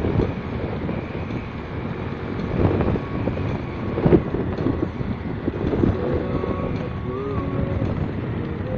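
Motorcycle riding at speed: a steady rumble of engine, road and wind buffeting the microphone, with two louder knocks about three and four seconds in.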